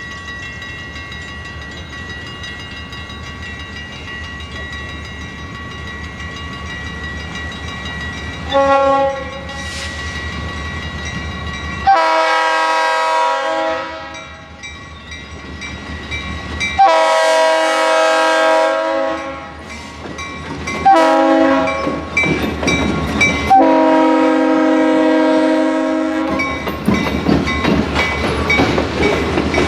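A diesel freight locomotive's air horn sounds a grade-crossing signal. After a brief toot come two long blasts, a short one and a final long one, each a multi-note chord. After the last blast the passing train rumbles and its wheels clack over the rail joints.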